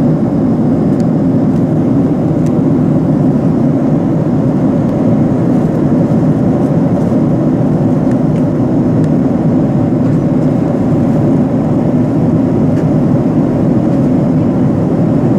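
Steady cabin noise of a Boeing 767 airliner in cruise flight: an even, low rumble of airflow and jet engines heard from inside the cabin.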